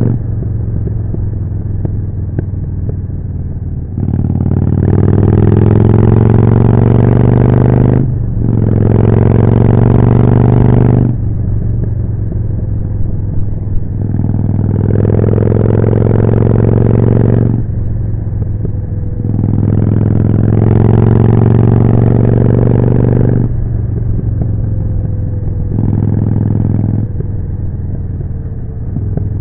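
Harley-Davidson Forty-Eight V-twin through a Jekill & Hyde exhaust, pulling hard in repeated bursts of a few seconds with the engine note rising, dropping back between them on gear changes and closed throttle.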